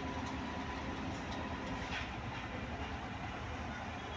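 Steady low rumble of heavy diesel machinery running, with a couple of faint short clicks.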